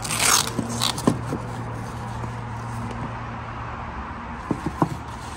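Hand tools being handled in a toolbox: a brief rustling scrape, then a sharp click and a few light knocks near the end, over a steady low hum.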